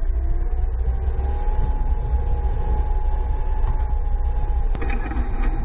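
BTR-82A armoured personnel carrier driving on a dirt track, heard from on top of the hull: a heavy low rumble from its V8 diesel engine, with a whine that rises in pitch over the first second and then holds steady. Some rattling comes in near the end.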